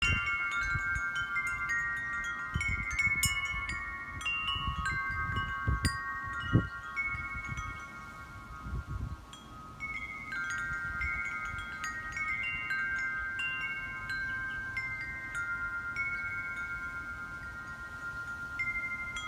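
Wind chimes ringing at irregular moments, several pitched notes sounding and overlapping, each held for a long ring. Low rumbles of wind on the microphone come in the first half, with one sharp low thump about six and a half seconds in.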